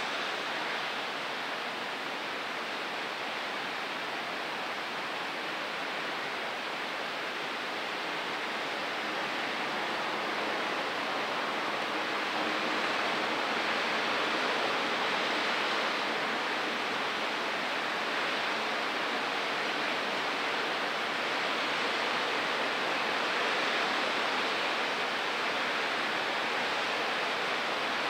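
Heavy thunderstorm rain pouring down steadily, a dense even hiss that swells a little about ten seconds in.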